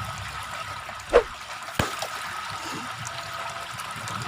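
Water trickling steadily, with one loud sharp knock or splash about a second in and a shorter click just after.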